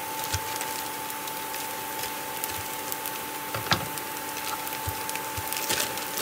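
Diced onions sizzling gently in a frying pan on an induction cooktop, with many small crackles, while a plastic bag of frozen mixed vegetables is torn open and rustled. A thin steady whine sits under it, and a sharper click comes a little before four seconds in.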